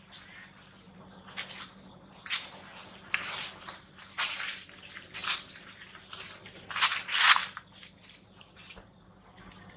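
Dry fallen leaves rustling and crackling in irregular short bursts as monkeys move over the leaf litter, loudest about halfway through and again near two-thirds of the way.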